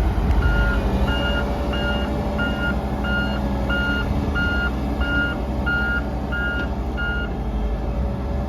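Backup alarm on an XCMG CV83PD vibratory roller beeping about one and a half times a second, some eleven beeps, over its Cummins diesel running steadily; the beeping stops near the end.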